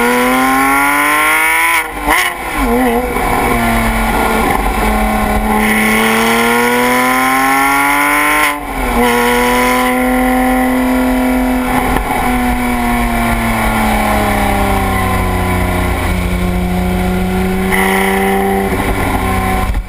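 Porsche 997 GT3 RS's naturally aspirated flat-six, heard at the X-Ost exhaust tips, pulling up through the revs. The revs drop sharply at a gearshift about two seconds in, then climb in one long pull to another shift about eight and a half seconds in. After that they hold, sink slowly, and rise a little again near the end.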